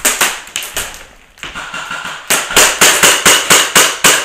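Airsoft rifle with a Polarstar Jack compressed-air engine firing single shots, each a sharp crack: a few uneven shots at the start, then after a short pause a steady string of about four shots a second.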